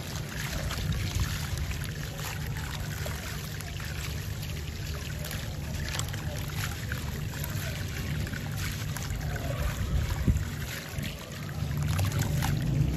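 A crumbly sand-cement chunk breaking apart in the hands, its grit and crumbs pouring and splashing into a tub of water as many small ticks and a trickling hiss, over a steady low hum.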